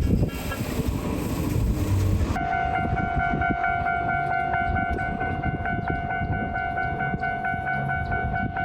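A train passing with a broad rumbling rush. About two seconds in the sound cuts abruptly to a Japanese level crossing's electronic warning bell ringing its even, rapid two-tone "kan-kan" over a low background rumble.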